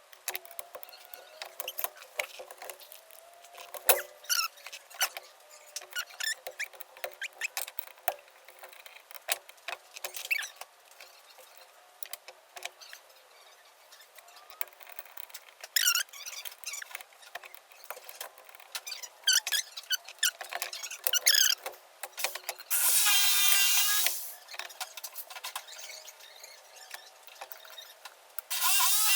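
Small carburetor parts being handled on a workbench: scattered light clicks and taps with short squeaks, then two loud short hisses, one about 23 seconds in and another just before the end.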